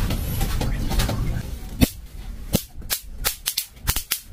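Electric mosquito swatter zapping mosquitoes on its charged grid: sharp, irregular snaps, several a second, starting about two seconds in after a low rumble.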